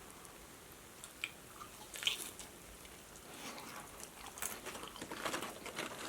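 A person biting into and chewing food. A couple of isolated bites come in the first two seconds, and the chewing grows busier and crackly from about three seconds in.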